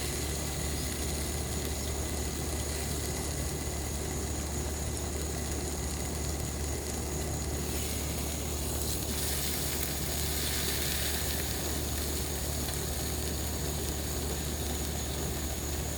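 Ninja Woodfire electric grill running, a steady low fan hum with chicken sizzling on the grill plate; the hiss grows louder for a few seconds midway.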